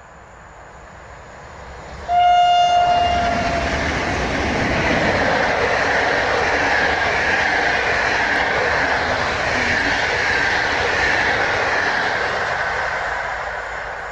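A passenger train's locomotive sounds one horn blast of about a second as it approaches. The train then passes at speed with steady wheel and rail noise that fades near the end as the coaches go by.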